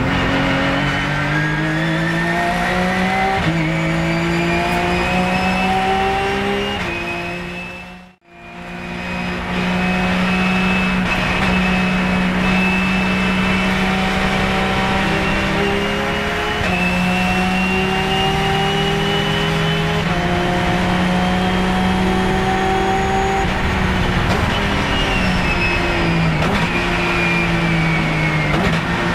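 Porsche 997 GT3 Cup race car's flat-six engine heard from inside the cockpit, pulling hard up through the gears: the pitch climbs in each gear and drops back at each upshift. The sound dips briefly to near silence about eight seconds in, then runs long at high revs with more upshifts, and the pitch falls near the end as the car slows.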